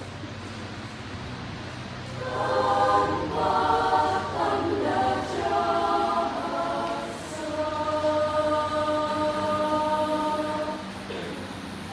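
Junior high school choir singing in several parts: the voices come in about two seconds in and sing a few phrases. They close on a long held chord that stops shortly before the end.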